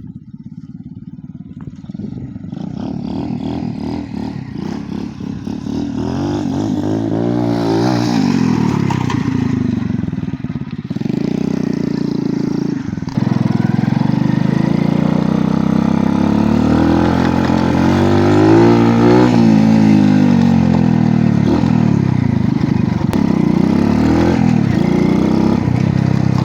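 Swapped 90cc engine of a Honda Benly-based mini scrambler motorcycle running and being revved, its pitch climbing and falling several times, loudest in the second half.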